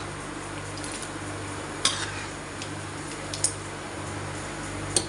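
Steel ladle stirring a watery jackfruit curry in a steel kadhai, clinking against the pan three times, over a steady low hum.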